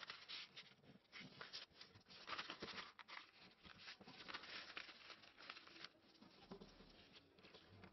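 A sheet of paper being folded and creased by hand on a wooden table: faint, irregular rustles and scrapes.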